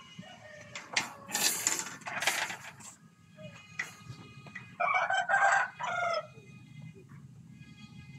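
A rooster crowing twice: a loud, rough, drawn-out call about a second in, then a clearer crow with stepped pitch about five seconds in.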